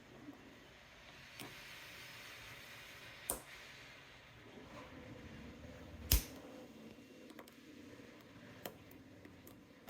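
Lock picking in a 4-pin Brava 30mm brass padlock: faint scraping of the pick in the keyway, with a few sharp clicks, the loudest about three and six seconds in.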